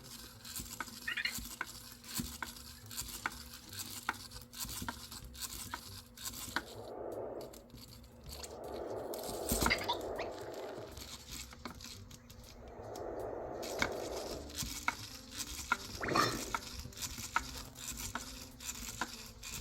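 EMO desktop pet robot moving about on its tabletop: a string of light clicks and taps, three longer soft whirs, and one short falling tone about four fifths of the way through.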